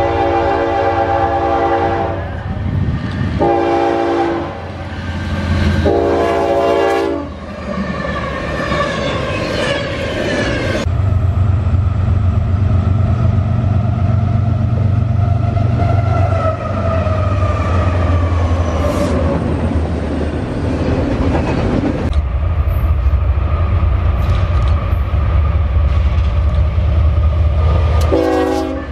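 Diesel freight locomotive horn sounding a long, a short and a long blast, then the locomotives' engines droning past with a falling tone and the train rolling by. Another horn blast comes near the end.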